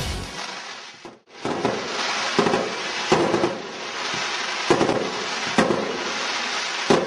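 Fireworks going off: a steady crackle with several sharp bangs about a second apart. A song's music fades out just before the fireworks begin.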